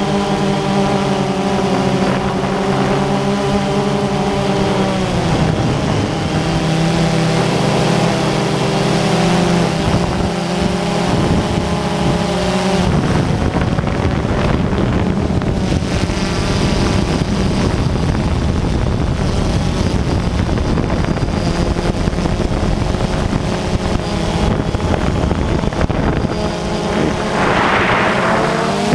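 Quadcopter drone's motors and propellers humming steadily, picked up by the drone's own camera, with wind buffeting the microphone. The pitch of the hum shifts about halfway through.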